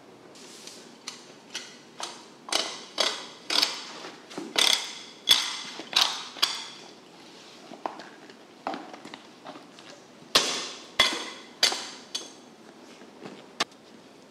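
A large knife chopping through bluefin tuna onto a wooden cutting board: a long run of sharp chops, often two or three a second, each with a short metallic ring from the blade.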